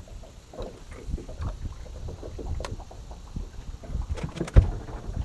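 Irregular knocks, bumps and clicks from people moving about and handling gear in a small fishing boat, with a sharp cluster of clicks and a loud thump about four and a half seconds in.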